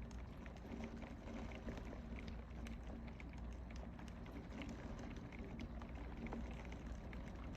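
Steady rain falling in a thunderstorm: a constant hiss of many small, irregular drop ticks over a faint steady low hum.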